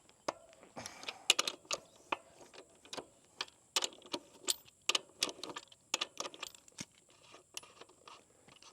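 Irregular sharp metallic clicks and clinks of hand tools working the rear axle nut loose on a Yamaha Ténéré 700 motorcycle, several a second and densest in the middle.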